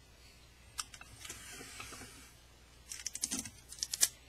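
Clear sticky tape pulled off the roll of a desk tape dispenser and torn off: a drawn-out peeling hiss about a second in, then a quick run of crackles and snaps near the end.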